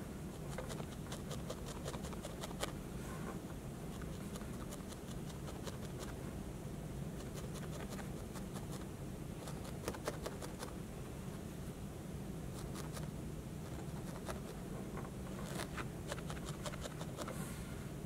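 Barbed felting needle stabbing repeatedly through yellow wool roving into a foam pad, a run of soft, quick scratchy pokes in bursts, over a steady low room hum. The needle is tangling the wool fibres to firm the ball into a pill shape.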